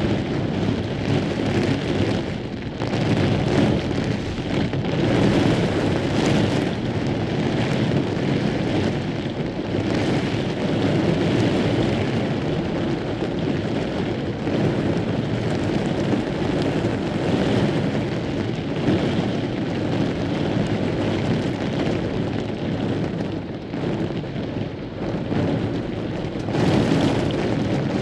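Heavy rain pouring in a severe thunderstorm with gusting wind, the rush of noise surging and easing every few seconds.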